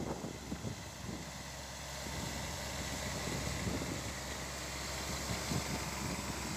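ASTE A-195 compact tractor's diesel engine running steadily under load as it pulls a mounted plow through the soil, a little louder from about two seconds in.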